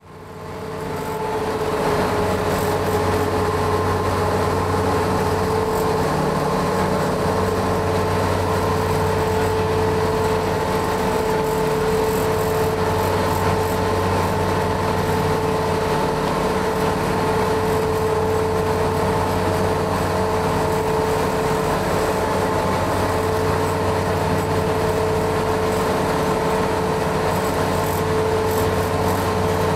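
Ferry under way, its engines running in a steady drone with a constant hum, fading in over the first couple of seconds.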